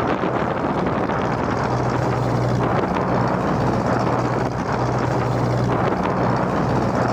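Mitsubishi 4D31 four-cylinder diesel of a heavily loaded small cargo boat running steadily under way, a constant low hum under the rushing of the bow wave and spray breaking along the hull.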